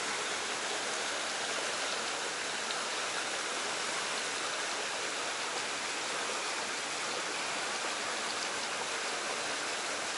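Flowing stream water rushing steadily, an even hiss with no breaks.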